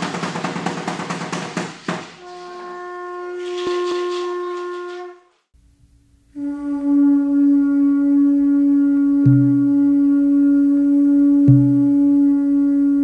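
Clattering rattles of the danza stop about two seconds in. A conch shell trumpet follows, blown in one steady note for about three seconds. After a short pause comes a steady lower drone with a soft deep thump about every two seconds.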